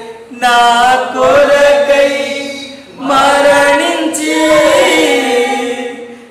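A man singing a Telugu Christian worship song in long held phrases, with a short break between two phrases about three seconds in.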